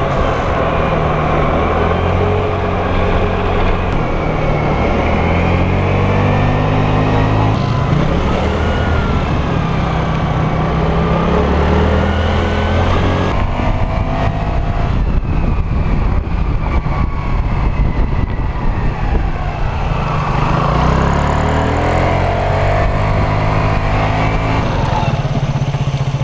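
Vespa LX 125 ie scooter's single-cylinder four-stroke engine running under way, its pitch rising and falling with the throttle, under constant wind and road noise. It settles to a steadier note near the end.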